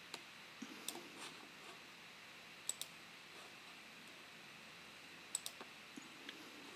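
Faint clicking from computer controls, several sharp clicks including quick pairs, over a steady low hiss.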